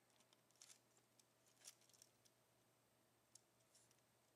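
Near silence, with a few faint scattered clicks and rustles of fingers handling thin wires and a small plastic plug against the plastic underside of a model railway turnout.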